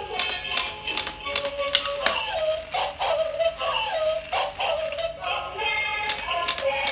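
Battery-operated dancing dog toy playing its built-in electronic song: a melody that slides up and down, over a run of sharp clicks.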